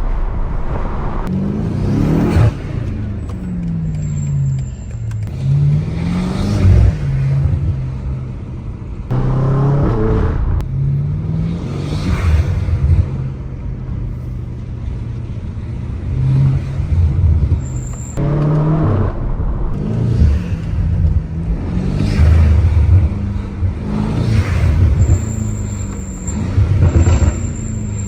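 BMW M8 Competition's twin-turbo V8 accelerating hard and backing off over and over, its revs climbing and dropping every few seconds with a loud burst at the top of many climbs.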